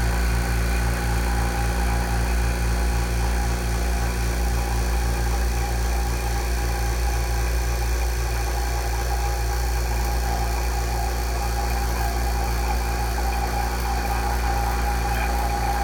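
Vacuum pump running steadily with an even, low hum, evacuating a vacuum chamber to pull vacuum on a MAP sensor.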